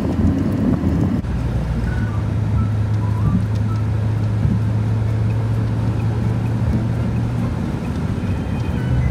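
Road noise inside a moving car's cabin: a rough low rumble for about the first second, then an abrupt change to a steady low hum as the car cruises on a smooth highway.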